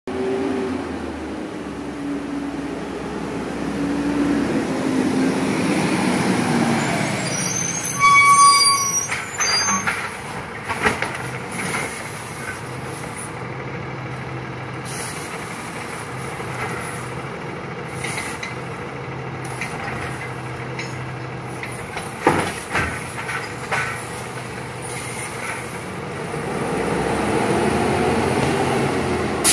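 Automated side-loader garbage truck: the engine pulls up, and about 8 seconds in the brakes give a loud squeal and hiss. The hydraulic arm then hums and clanks as it lifts and dumps a yard-debris cart, and bangs the cart back down a little past the 22-second mark. The engine revs up again as the truck moves off near the end.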